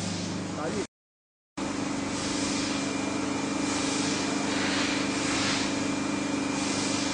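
A steady machine hum, made of a low drone and a faint high whine, with soft hiss swelling and fading over it. About a second in it drops out completely for under a second at a cut in the recording, then resumes unchanged.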